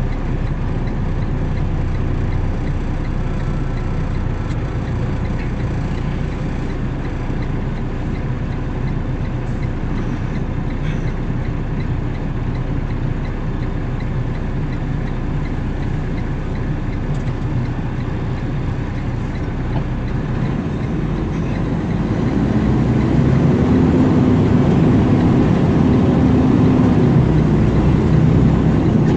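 Vehicle engine running at a low idle with road noise, heard from inside the cab. About twenty-two seconds in it gets louder and its pitch rises as the vehicle accelerates away.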